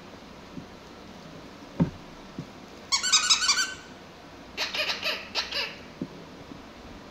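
Two quick flurries of short, high squeaks, the first a rapid run lasting under a second and the second a looser cluster about a second later, with a soft thump shortly before them.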